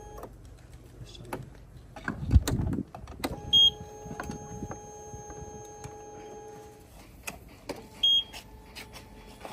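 A steady electric whine from the quad's electrics that cuts out and comes back twice, each return followed by a short high beep, as the ignition is switched on. A loud low rumbling knock comes about two and a half seconds in.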